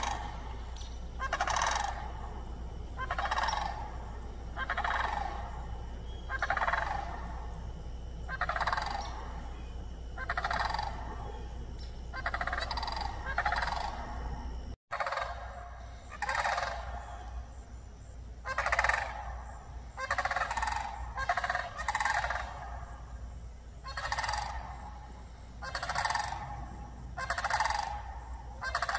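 Wild turkeys gobbling over and over, a call every one to two seconds.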